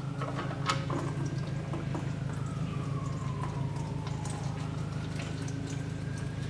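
Engine oil pouring and dripping into a drain pan under the car, with scattered light clicks. Beneath it runs a steady low hum, and a faint tone slowly falls and then rises again.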